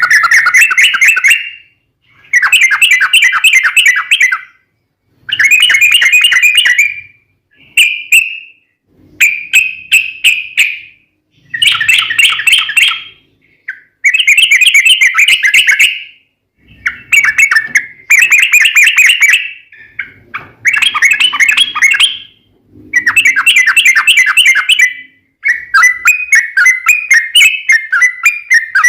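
Sooty-headed bulbul (trucuk) singing: about a dozen loud phrases, each a rapid run of notes lasting one to two seconds, with short pauses between. In the last few seconds the song runs on as one long unbroken roll.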